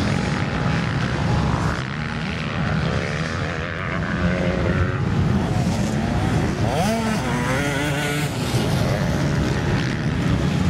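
Off-road motorcycle engines running hard, revving up and down as the bikes climb past, with one sharp rising-and-falling rev about seven seconds in.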